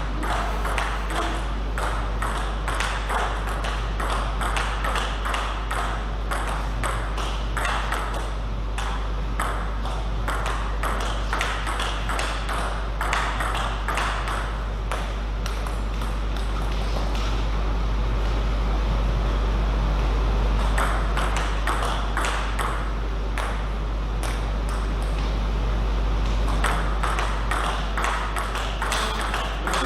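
Table tennis balls clicking off bats and tables in a rapid, irregular patter, with a steady low hum underneath.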